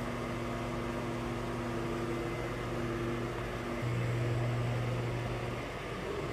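Steady low electrical hum of a large indoor hall, a low drone with fainter higher overtones, swelling louder for a second or two about four seconds in.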